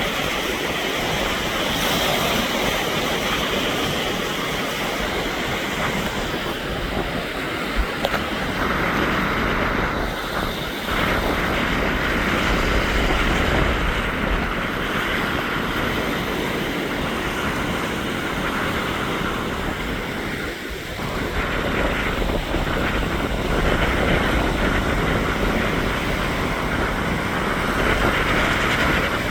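Lake Erie waves breaking on the shore in strong wind: a continuous rushing surf that swells and eases, with a couple of brief lulls, and wind buffeting the microphone with a low rumble.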